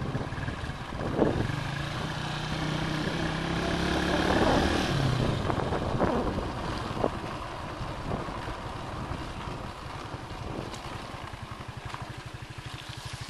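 Small motorcycle engine running under way, with wind on the microphone; it swells louder about four seconds in, then eases off.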